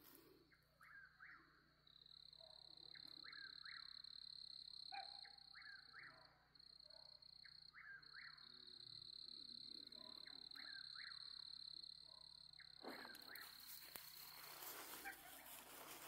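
Faint night chorus outdoors: a steady high-pitched insect trill with short chirping animal calls repeating in little groups every second or two. A rustling noise comes in near the end.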